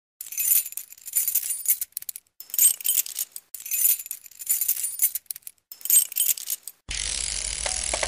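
Bright metallic jingling in repeated bursts about a second long, part of an intro soundtrack. About seven seconds in it gives way to a steadier, fuller music track.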